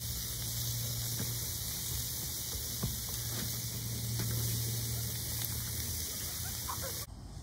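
Sausages and bread sizzling on a charcoal grill, a steady hiss, with a few light clicks of metal tongs against the grate. The hiss cuts off suddenly near the end.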